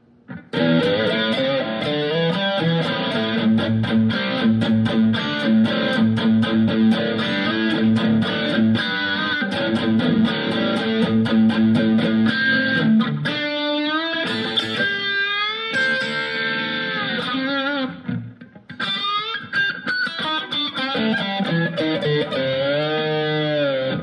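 Electric guitar played through the Sonicake Matribox II Pro multi-effects processor's amp-modelling preset: a busy run of picked notes with bent, gliding notes, a short break about three-quarters of the way through.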